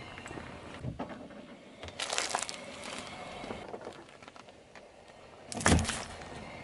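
Car tyre crushing things on asphalt: a brief crackling crunch about two seconds in, then near the end a drink carton bursts flat under the tyre with a loud pop and splatter of liquid.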